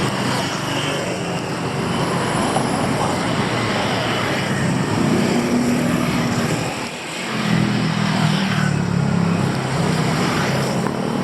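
Street traffic: the engines of passing vehicles running in a steady din, easing off briefly about seven seconds in and then building again.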